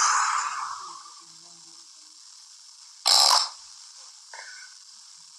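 A sleeping man snoring, in noisy breaths. A loud one fades away over the first second, and a short loud one comes about three seconds in.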